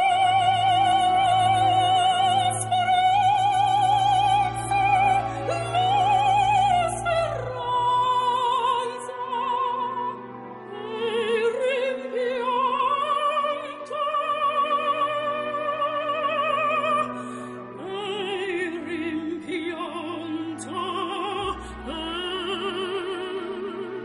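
Opera aria: a high operatic voice singing slow, long held notes with wide vibrato over a low orchestral accompaniment. The deep bass drops away about eight seconds in.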